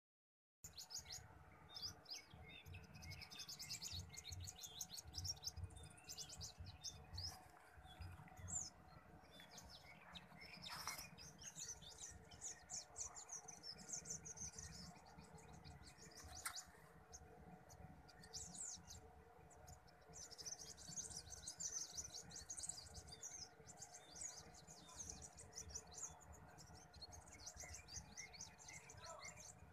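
Faint chorus of small birds chirping, with quick high calls in rapid runs throughout.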